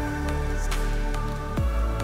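Electronic background music with held synth chords and a deep kick drum, one bass hit falling in pitch about a second and a half in.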